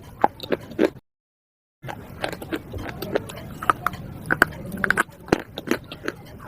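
Close-up crunching: a person biting and chewing slate pieces, with many sharp, irregular crunches. The sound drops out to dead silence for under a second about a second in.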